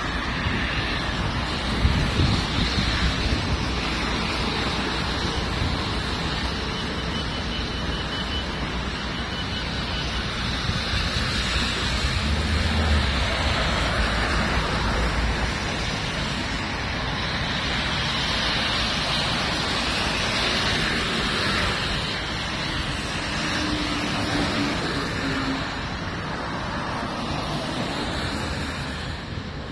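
Street ambience on a wet city road: a steady hiss of car tyres on rain-soaked asphalt as traffic passes, with wind buffeting the microphone in low rumbles about two seconds in and again around twelve seconds.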